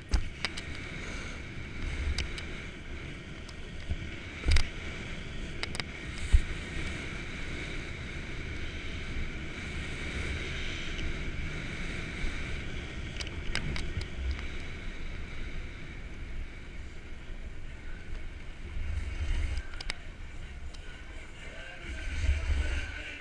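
Snowboard sliding and carving over groomed snow, a steady scraping hiss, with wind buffeting the camera's microphone and a few sharp knocks.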